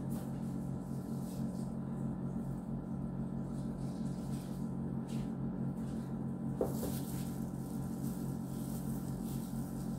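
A steady low hum, with one faint click about six and a half seconds in.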